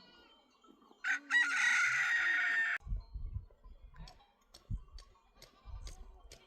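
A rooster crowing once, starting about a second in and lasting nearly two seconds before cutting off sharply. A few softer low thuds and clicks follow.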